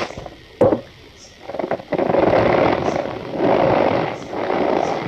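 Compacted cornstarch being crushed and squeezed by hand, giving a squeaky crunching. There is one sharp crack about half a second in, then dense, continuous crunching from about two seconds on.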